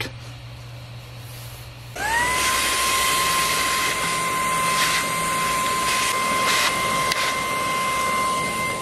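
A small electric motor starts about two seconds in, spins up with a short rising whine and then runs steadily at a high pitch with a rushing air sound.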